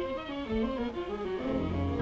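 Orchestral cartoon score, with bowed strings playing a quick passage of short notes that step up and down.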